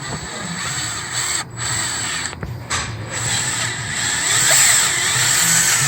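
A torch flame hissing steadily while it heats a stuck EGR bolt to break it free, with a few brief dips in the hiss.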